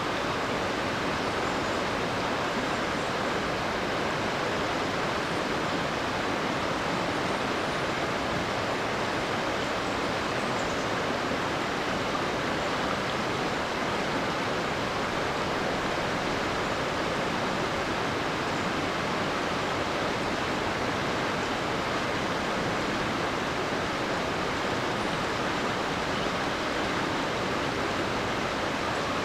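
The East Lyn, a rocky river, flowing steadily over and around boulders: an even, unbroken rush of water.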